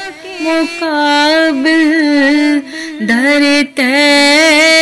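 A solo voice sings an Urdu devotional kalaam, drawing out long wavering notes, with a short break about three seconds in.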